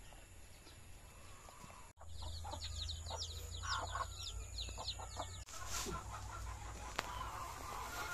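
Native chickens clucking, with chicks peeping in quick high calls, from about two seconds in to the middle; then a short soft rush of noise as rice bran is poured from a sack onto the ground.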